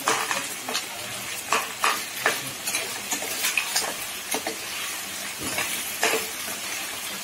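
Mutton pieces and ginger-garlic paste sizzling in hot oil in a kadai while a steel spoon stirs them. The spoon scrapes and knocks against the pan a dozen or so times, at irregular intervals.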